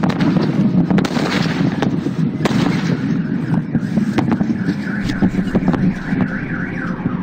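Irregular series of sharp bangs over steady low noise from the Chelyabinsk meteor's airburst shockwave. From about four and a half seconds in, a wavering alarm sounds, the kind of car alarm the blast set off.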